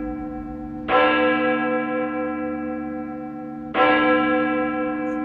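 A deep bell-like tone tolling slowly: struck about a second in and again near four seconds, each strike ringing on and slowly fading.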